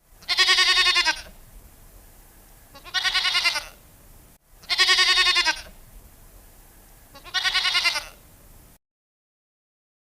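Sheep bleating four times, each a wavering call of under a second. The same pair of bleats is played twice over.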